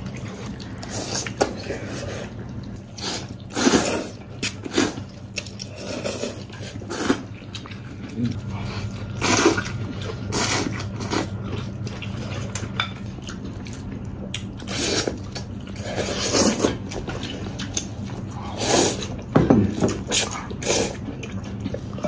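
Someone eating wide noodles from a bowl with chopsticks: a string of short slurps and chewing sounds, with chopsticks clicking against the bowl.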